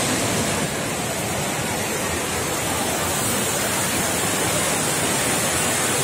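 Indoor waterfall of the Rain Oculus, a huge overhead bowl pouring a column of water into the pool below: a loud, steady, unbroken rush of falling water.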